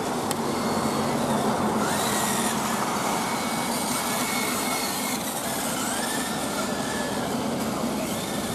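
Kyosho Fazer MK2 1/10 electric RC touring cars racing round the track, their motors and gear drives whining. The pitch of the whine rises and falls as the cars speed up and slow down through the corners.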